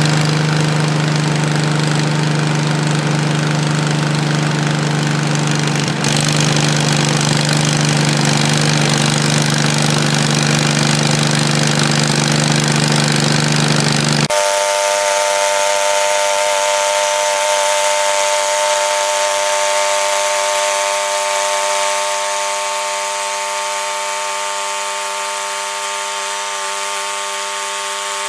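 Portable bandsaw sawmill running, its gasoline engine droning steadily. About halfway through the sound changes abruptly: the low engine drone drops out and a higher, steady whine of the saw remains.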